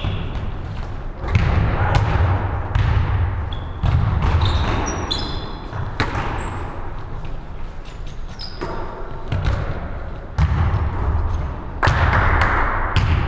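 Basketball game on a hardwood court in a large echoing hall: the ball bouncing, players' running footsteps thudding, and short high squeaks of sneakers on the wood.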